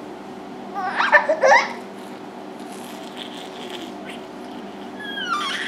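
A baby's high-pitched laughing squeals, two short bursts: one rising in pitch about a second in and one falling near the end.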